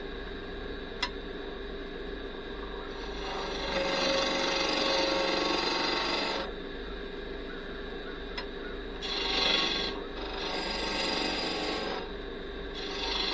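Wood lathe running with a steady hum while a parting tool cuts a groove into a spinning cherry blank. The cuts come as scraping hiss: one long cut of about three seconds, then three shorter cuts near the end.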